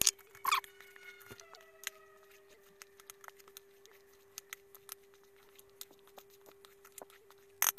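Silicone spatula folding melted chocolate into whipped aquafaba in a plastic bowl: soft scrapes and small clicks against the bowl, with a few louder knocks near the start and near the end. A faint steady hum runs underneath.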